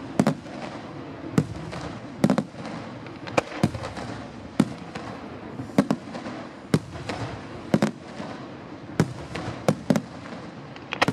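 Aerial firework shells bursting in a display: sharp bangs about once a second, some in quick pairs, over a steady background hiss.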